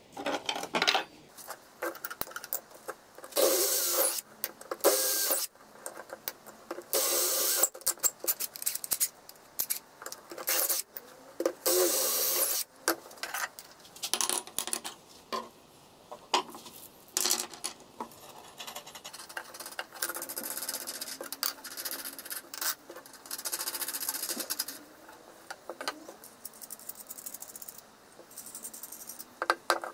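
Steel threaded rods, hex nuts and clear plastic discs being handled on a wooden board: irregular clatters and knocks of metal on wood, with several scraping stretches of about a second as parts are slid and nuts threaded onto the rod.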